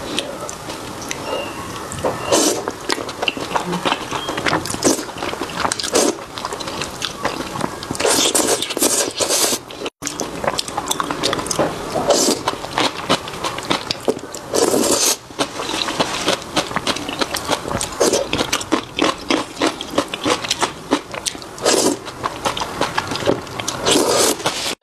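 Close-miked slurping of thick noodles in spicy sauce, with wet chewing and mouth sounds between the slurps. A loud slurp comes every second or two.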